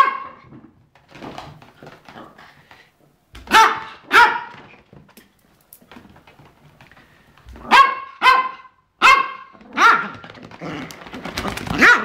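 Small dog barking in short, high-pitched yaps that come on and off: a pair about four seconds in, a quick run of four or five around eight to ten seconds, and more near the end.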